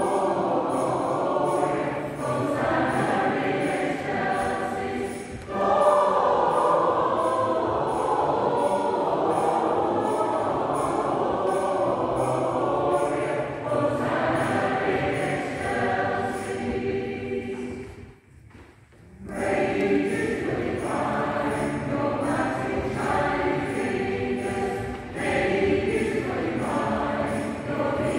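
A choir singing sustained notes, with a short break about two-thirds of the way through before the singing resumes.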